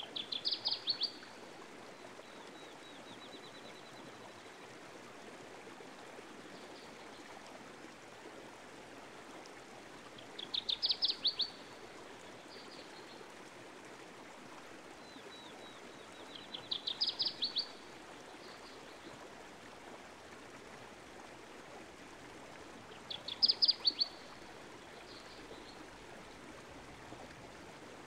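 A songbird singing a short, fast trill of high notes, about a second long, repeated every five to ten seconds with fainter notes between, over steady running water.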